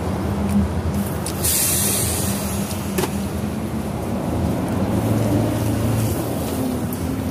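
Steady low mechanical rumble of street noise with a few held low tones, a short sharp hiss about a second and a half in, and a single click about three seconds in.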